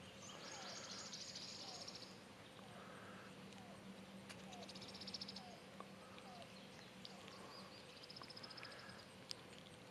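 Faint calls of wild animals: a few rapid trills lasting about a second each, and a string of short chirps about every two-thirds of a second. A couple of small clicks come near the end.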